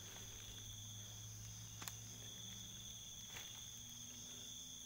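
Steady, high-pitched chorus of night insects, with a sharp click about two seconds in and a fainter one a second and a half later.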